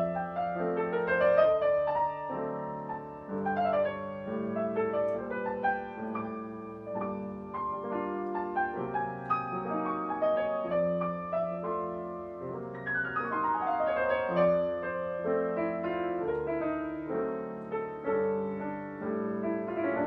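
Solo piano background music playing gently flowing notes, with a quick downward run about thirteen seconds in.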